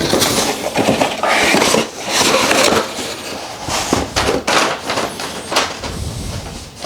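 Hands unpacking a ring light from its box: cardboard and plastic packaging rustling and scraping, with repeated knocks and clicks of hard parts being handled.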